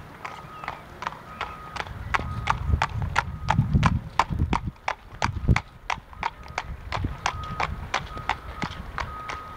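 A horse's hooves clip-clopping on asphalt at a trot in an even, steady rhythm. The hoofbeats are loudest as the horse passes close by, about three to five seconds in. A repeated high beep sounds faintly in the background.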